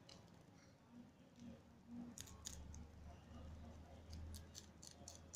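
Domestic rabbit biting and chewing a celery stalk: faint crisp crunches that start about two seconds in and come faster near the end.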